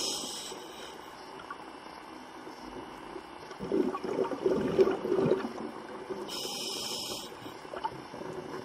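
Scuba diver breathing through a regulator underwater: a short hiss of inhaling at the start and again about six and a half seconds in, with a gurgle of exhaled bubbles around four to five seconds in.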